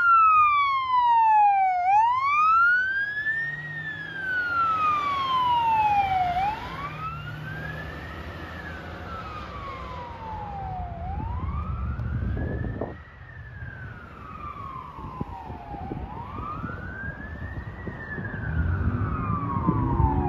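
Siren on a 2010 Pierce Arrow XT fire engine sounding a wail: a tone that glides steadily up and down, one rise and fall roughly every four to five seconds, over the truck's low engine rumble, which swells twice in the second half.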